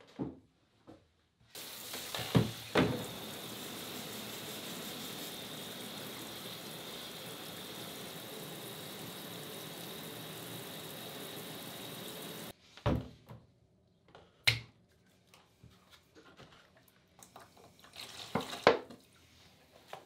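Water running steadily for about ten seconds, then cutting off abruptly, with two sharp knocks soon after it starts. Afterwards come a few scattered knocks and clinks.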